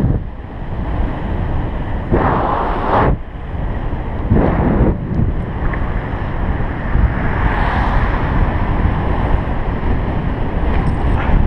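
Wind rushing over the microphone of a GoPro Hero 3 on a bike riding down a paved road, over a steady low rumble. Two louder surges of rushing noise come about two and four seconds in.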